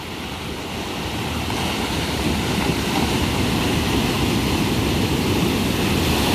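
Ocean surf breaking and washing over a flat rock shelf, a steady rush of water that grows louder over the first couple of seconds.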